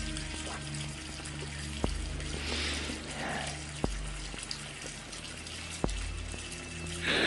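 Water running from a washroom tap into a sink, with a swell about halfway and a louder burst near the end. A low music score runs underneath, its deep notes changing about every two seconds.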